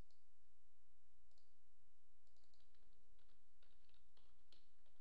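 Two single clicks, then typing on a computer keyboard from about two seconds in, the keystrokes coming faster toward the end.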